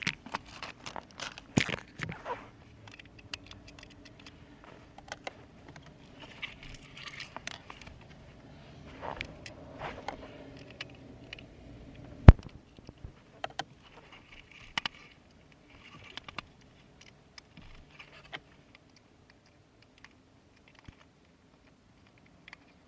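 Small plastic clicks, taps and rustling from handling a 4Runner's removed HVAC control panel while its bulb sockets are twisted out and replaced, with one sharp click about twelve seconds in.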